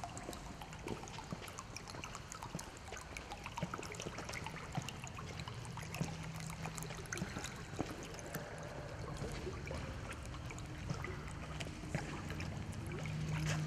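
Surface popper lure with two hinged paddles being reeled across the water, its paddles splashing and gurgling along in a steady patter of small splashes and clicks.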